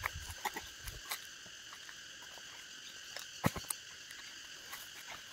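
Steady insect chorus holding several high pitches at once, with scattered faint clicks and crackles, the sharpest about three and a half seconds in.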